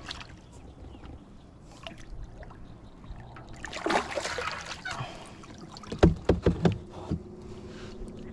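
Sounds of a foldable kayak on the water: a swell of splashing about four seconds in, then a quick run of about six sharp knocks, the loudest moment.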